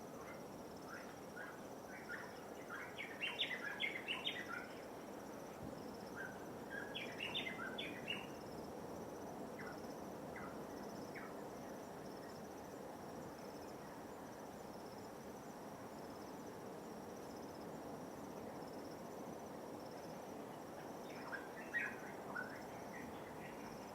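Birds chirping in short clustered bursts, about three seconds in, around seven seconds, and again near the end. Under them runs a steady high trill of insects and a low, even wash of light waves.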